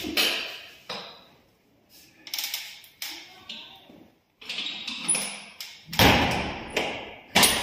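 Footsteps slapping on a hard tiled floor, about one a second and irregular, with the loudest steps near the end. Each step echoes in a large, empty, bare room.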